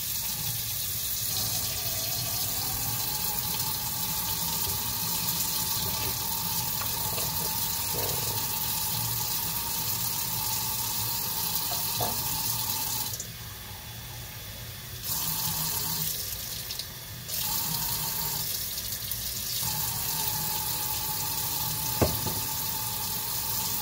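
Kitchen faucet running steadily into the sink while the water is adjusted down from too hot, the flow cut back twice briefly midway. A sharp knock near the end.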